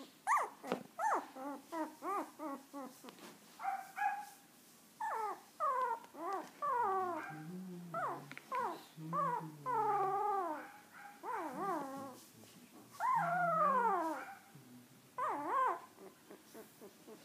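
Young husky puppy whining and crying in a rapid string of short calls that rise and fall in pitch, with a few longer, wavering cries.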